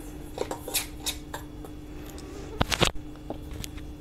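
A hand mixing dry flour in a stainless-steel bowl: soft scraping and rustling of the flour, with a few sharp clicks against the side of the bowl a little before three seconds in.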